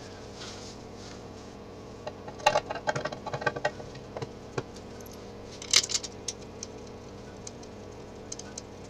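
Light metallic clicks and clinks of small bolts and a motorcycle engine cover being handled and set in place. They come in a cluster about two to four seconds in and again near six seconds, over a steady faint hum.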